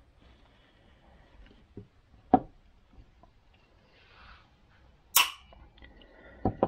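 A handful of sharp clicks and knocks of small metal parts being handled as the cover goes onto a carburettor's automatic choke housing. The loudest knock comes about two seconds in, a brighter clink about five seconds in, and two quick clicks near the end.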